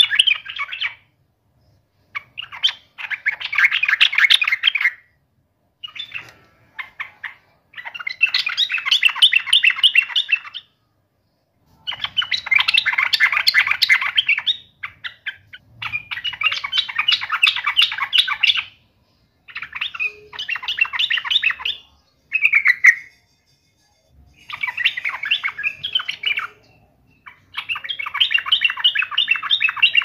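Yellow-vented bulbul singing in repeated bursts of fast, bubbly chattering phrases, each about two to three seconds long, with short pauses between them.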